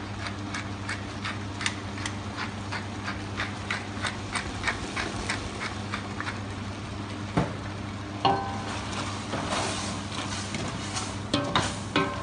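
Pepper mill grinding black peppercorns: regular clicks about three a second over a steady low hum. From about eight seconds in, the clicks stop and a wooden spoon stirs the onions, knocking a few times against the steel pot.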